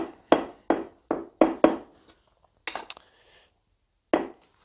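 Bricklaying knocks: a run of about five sharp taps of a tool on bricks bedded in clay mortar, then a few more scattered knocks.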